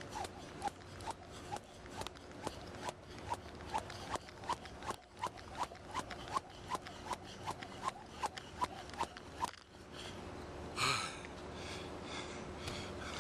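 Jump rope slapping artificial turf in a steady rhythm, a little over two strokes a second, stopping about nine and a half seconds in. A short, loud rush of breath follows near the end.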